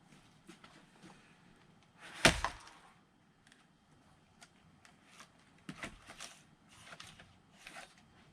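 An axe striking a log hard about two seconds in, with a second crack just after, followed by lighter knocks and clatter of split firewood.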